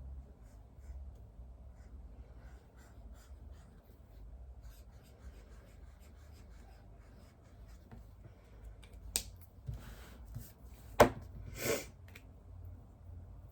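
Quiet study-desk handling sounds: faint, scattered ticks and scratches of writing or typing. About nine seconds in comes a sharp click, then short rustles, then a single louder sharp knock and one more rustle.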